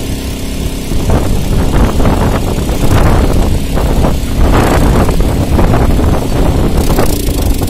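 Gas preheating torch roaring steadily into the mould of a thermite rail weld, heating the rail ends before the pour; it grows louder about a second in.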